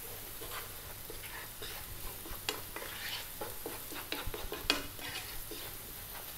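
Wooden spoon stirring and scraping chopped onion and garlic with turmeric around a frying pan in hot oil: a string of irregular scrapes and taps, one sharper knock about three quarters of the way through, over a steady sizzle of the oil.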